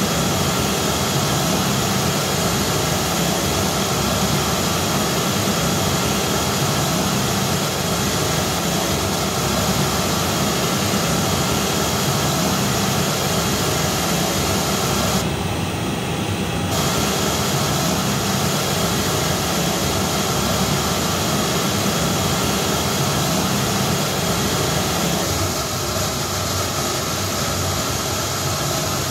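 Steady pink-noise test signal played loud through the PA loudspeakers: the reference signal for a Smaart transfer-function measurement used to tune and EQ the system. The hiss thins briefly in the highs about halfway through.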